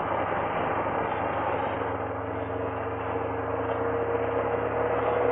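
Dodge Viper V10 engine and tyre noise at a steady cruise, heard from inside the cabin: an even drone with a steady hum, easing off a little mid-way and building back toward the end.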